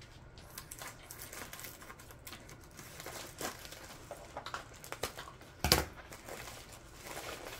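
Plastic shipping mailer crinkling and rustling as it is cut open and handled. About three-quarters of the way through there is one sharp clack, as scissors are put down on the tabletop.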